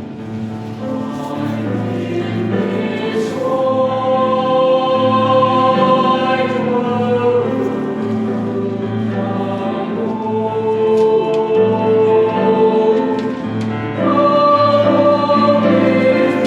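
Madrigal choir singing in parts, holding long chords that change every few seconds, growing louder near the end.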